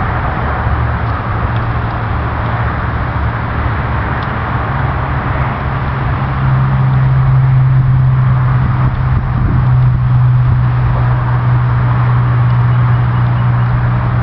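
A steady, loud low mechanical hum, like a motor running, which grows louder about six and a half seconds in.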